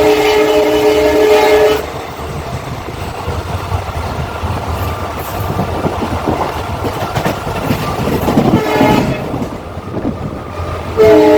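WDG4 diesel locomotive's horn sounding a loud, steady chord of several tones, cutting off about two seconds in. The train then rumbles and clatters along the track, and the horn blasts again near the end.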